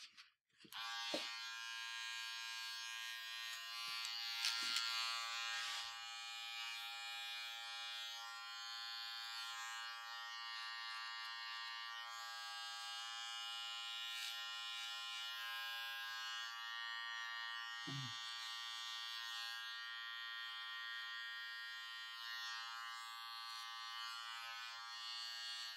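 A small handheld electric motor buzzing at a steady pitch, with a brief break just after the start.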